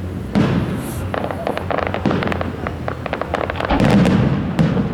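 Aerial fireworks shells bursting: a bang shortly after the start, a rapid run of crackling pops through the middle, then a heavier boom near the end, the loudest part.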